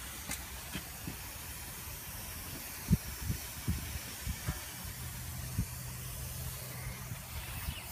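Steam hissing from a Clayton and Shuttleworth stationary steam engine with its cylinder drain valves and main steam valve open, as it is got ready to start. A few dull knocks sound through it, the loudest about three seconds in, and a low hum comes in about halfway.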